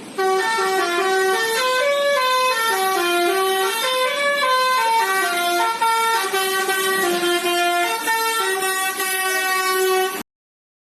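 HRTC bus's musical horn playing a tune: a quick run of single held notes stepping up and down in pitch for about ten seconds. It cuts off sharply near the end.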